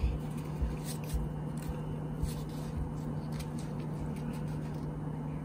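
Steady low hum with faint soft handling noises from hands tearing apart soft, freshly cooked naan.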